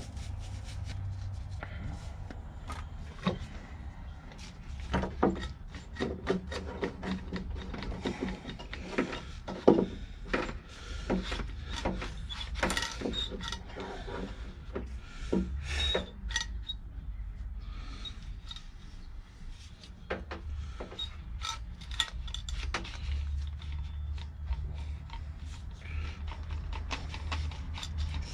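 Hand work in a workshop: scattered knocks, clicks and scraping, irregular and with no steady rhythm, over a low steady hum.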